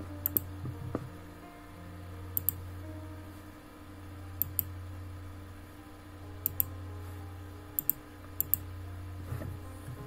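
Camera shutter firing in quick double clicks, six pairs of sharp clicks about one to two seconds apart, over a steady low hum.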